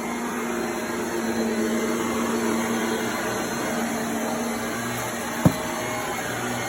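Household vacuum cleaner running steadily with a droning hum, with a short knock about five and a half seconds in.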